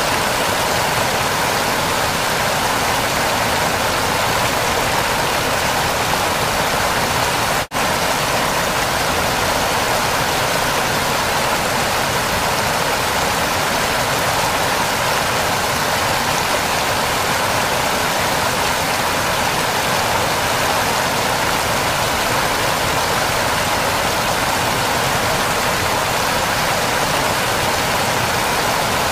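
Waterfall rushing: a steady, even roar of falling water, broken once by a momentary dropout nearly eight seconds in.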